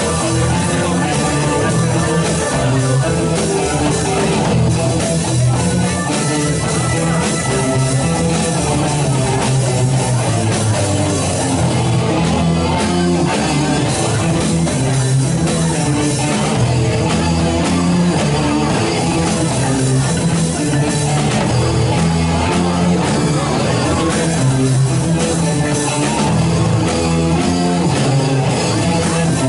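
Live rock band playing, with electric guitar, bass, drums and keyboards.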